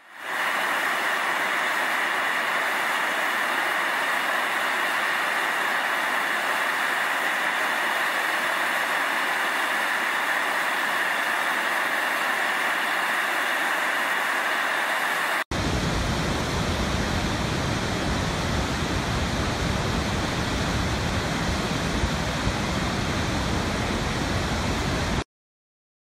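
Steam hissing steadily from a fumarole vent in a rock mound. After an abrupt cut about two-thirds of the way in, it gives way to a deeper, fuller rush of falling water from a waterfall, which stops suddenly near the end.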